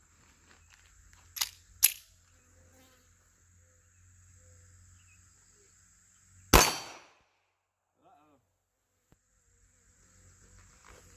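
A single shot from a Taurus Spectrum .380 ACP micro pistol, a sharp crack with a short echoing tail, about six and a half seconds in. Two quieter sharp clicks come earlier, about a second and a half and two seconds in.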